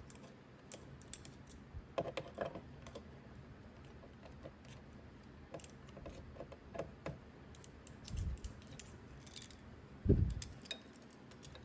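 Faint irregular clicks and ticks of a screwdriver working loose the screws of a broken concealed corner-cabinet hinge, with a couple of dull thumps from handling the door and hinge about eight and ten seconds in.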